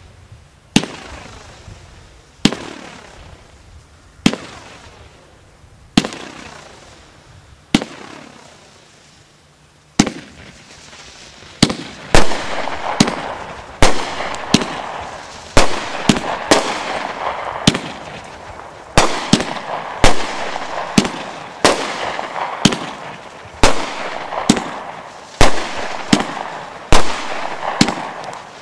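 A 36-shot 500-gram consumer fireworks cake, the Brothers 'Saturday Night Special', firing: sharp launch reports about every two seconds at first, then from about ten seconds in the shots come faster, several a second, with a continuous crackling between them.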